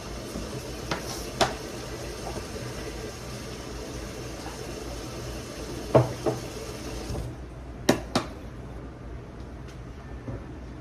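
Kitchen tap running, then turned off about seven seconds in. A few short clinks and knocks of utensils come over it.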